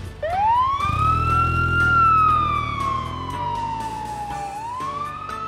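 Police siren wailing: one quick rise, a slow fall over about three seconds, then a second rise near the end. A low rumble lies under the first rise.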